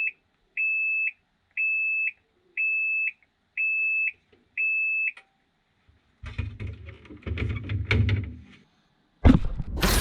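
Washing machine beeping its end-of-cycle signal: six steady high beeps, each about half a second, one a second. A few seconds of irregular knocking and rattling follow, and near the end a sudden loud rushing noise starts.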